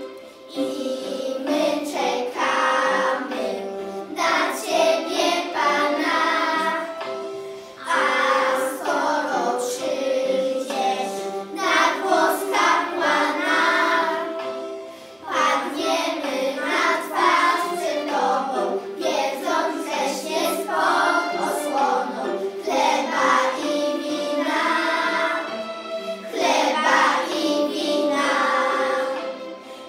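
A group of young schoolchildren singing a Polish Christmas carol together, in sung phrases with short breaks between them.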